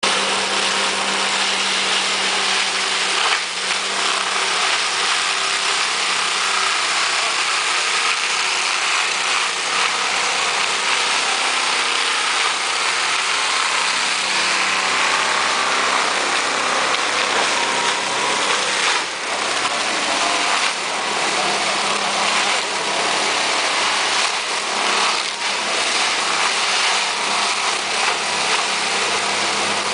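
Tractor engine running under load driving a Tortella TP13 PTO shredder that chops palm fronds and branches: a steady engine hum under a loud, even rush of shredding noise, with a few brief sharp knocks as pieces are struck.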